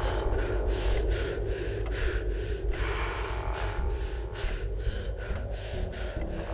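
A person breathing hard and fast, with short, breathy gasps in quick succession, about three or four a second, over a steady low droning rumble.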